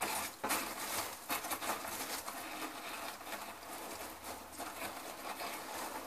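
Packing material rustling and crinkling in a cardboard box as hands rummage through it, with many small crackles and scrapes.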